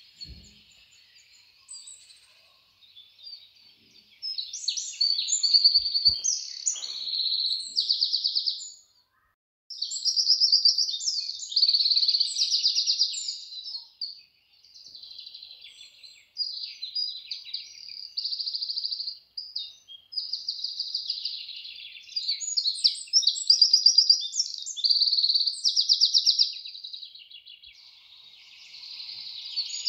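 Birds singing nearby: repeated phrases of high chirps and fast trills, each lasting a second or few, with short gaps between them.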